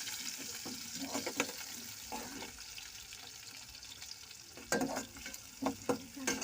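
Chopped onion, garlic and green chillies sizzling in hot oil in a pan while being stirred. The sizzle slowly fades, and a spoon knocks and scrapes against the pan a few times, most sharply in a cluster near the end.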